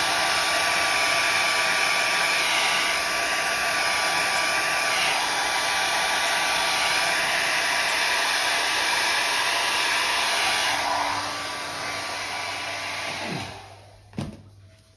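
Handheld hair dryer blowing steadily across wet acrylic paint to push it out over the canvas. About eleven seconds in it turns quieter, then it switches off about two seconds later with a short falling whine as the motor spins down, followed by a sharp knock.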